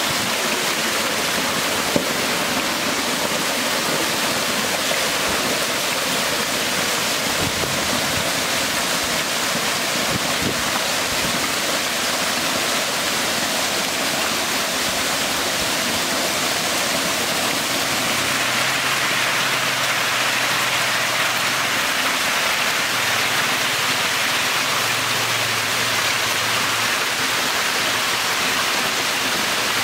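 Steady rushing, splashing water noise from a shallow cement tank packed with baby catfish, like a stream or heavy rain.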